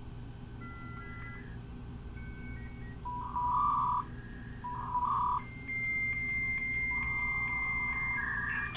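Dial-up modem connection sounds over a phone line: short dialing tones in the first few seconds, then two loud buzzy bursts about three and five seconds in. A steady high answer tone follows, and near the end the harsh multi-tone handshake noise begins.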